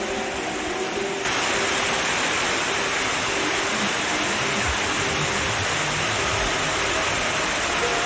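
Steady rushing and splashing of a waterfall cascading in many thin streams over rock, with soft meditation music faintly underneath. About a second in, the water turns louder and brighter.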